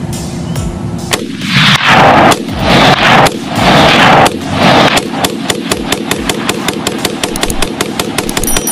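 Magpul ACR rifle firing tracer rounds: four loud volleys of rapid shots in the first half, each smeared to about a second long. Through the second half a fast, even ticking runs at about five a second.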